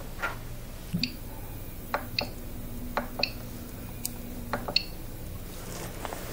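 Short, sharp clicks at irregular spacing from the Original Prusa i3 MK3's LCD control knob being turned and pressed to work through the menu, some with a brief high chirp. A faint steady hum runs underneath from about a second in until nearly five seconds.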